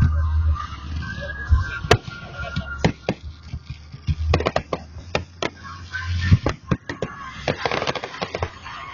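Fireworks going off: a string of sharp bangs and crackles, thicker in the second half, over low booms and the voices of a crowd.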